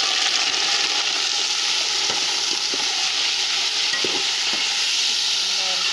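Raw chicken wings sizzling loudly in hot ghee with browned onions in a metal pot, just added to the fat, with a few light scrapes of the ladle as they are stirred.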